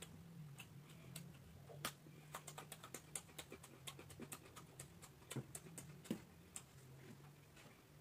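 Close-up chewing of raw vegetables eaten with rice: a quick run of crisp crunching clicks lasting a few seconds, over a faint steady low hum.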